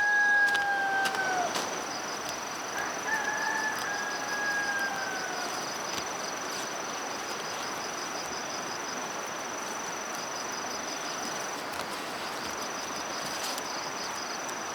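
A rooster crowing twice: the end of one long crow in the first second and a fainter one about three seconds in. Under it, a steady high insect trill with a fast pulsing beat that breaks off for about a second near the end.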